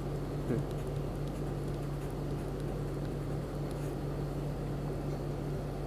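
Steady low background hum with an even hiss: room tone between spoken sentences.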